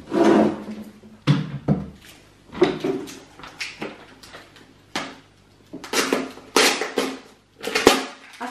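Hard clear plastic storage bins knocking and scraping against a cabinet shelf as they are handled and set in place: a series of separate clatters. Near the end comes crinkly rustling as a card label is pulled off a bin.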